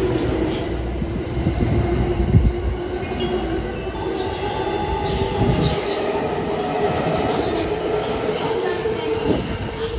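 JR East E217 series electric commuter train departing from the platform, its cars rolling past with a steady hum and the rumble of wheels on the rails.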